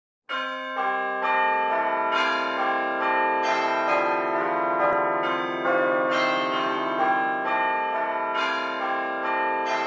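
Church bells pealing, starting suddenly just after the beginning. A new bell strikes about twice a second, and the tones ring on and overlap.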